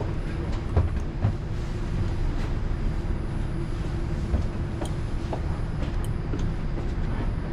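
Steady low hum of a maglev train standing at the station with its doors open, with a few scattered light clicks.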